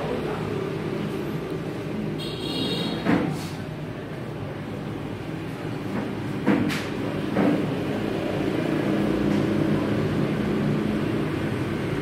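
Steady low hum of vehicle engines. A short high-pitched tone sounds about two seconds in, and a few brief sharp clicks come later.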